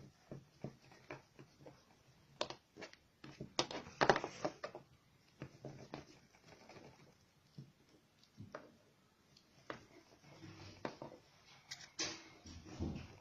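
Scattered small clicks, taps and knocks of hands handling modelling dough and its tools on a tabletop, irregular, with busier clusters about 4 seconds in and near the end.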